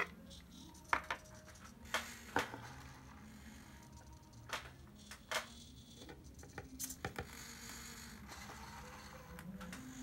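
Small hobby servo motors of a cardboard robot arm moving in steps, a faint whir that shifts up and down in pitch, with several sharp clicks and taps from the arm and parts being handled.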